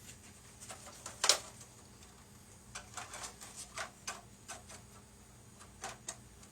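Hard plastic model parts clicking and knocking against each other as a 3D-printed nose piece is handled and test-fitted to a plastic model car body. One sharper knock comes about a second in, then a run of lighter, irregular clicks.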